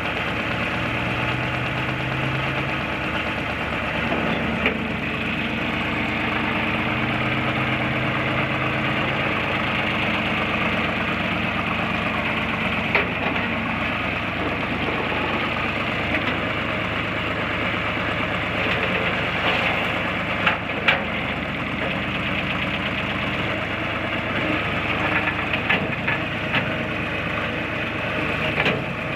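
The three-cylinder diesel engine of a John Deere 240 skid steer running steadily, with a few short sharp knocks heard now and then over it.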